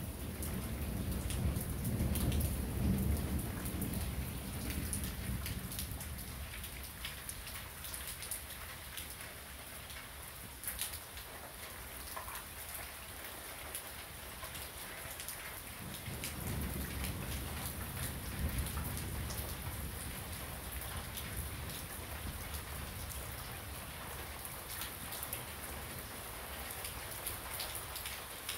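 Thunderstorm rain falling steadily, with many sharp ticks of single drops striking close by. Two long, low rolls of thunder run through it, the first in the opening seconds and the second a little past the middle.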